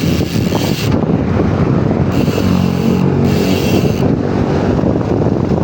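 Paps Pro 3 bicycle hub's freehub buzzing, with the high buzz coming and going several times over low rumble and wind on the microphone.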